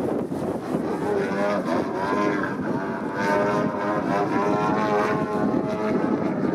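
Engine and propeller of a 104-inch Extreme Flight Extra 300 radio-controlled aerobatic model plane in flight. The engine note rises and falls in pitch several times as the model manoeuvres.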